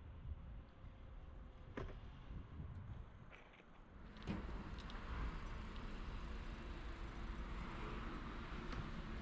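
City street ambience: a steady hum of road traffic with a few faint clicks, turning louder and fuller about four seconds in.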